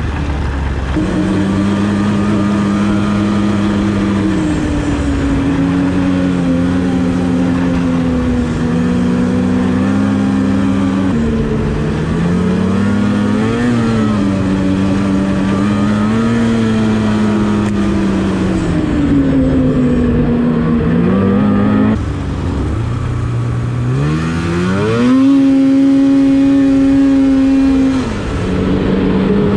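Polaris Switchback Assault snowmobile's two-stroke engine under way, its pitch rising and falling as the throttle is worked. About three-quarters of the way through it revs up sharply and holds high and steady, the loudest part, then eases off shortly before the end.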